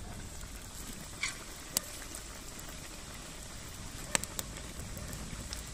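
Pork fat and cracklings bubbling and sizzling in a cast-iron cauldron over a wood fire as the fat renders, a steady frying hiss with a few sharp pops.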